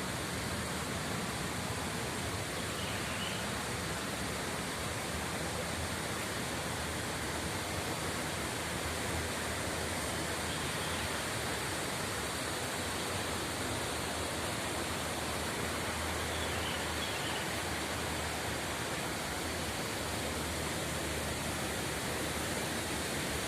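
Steady rush of flowing, rippling water.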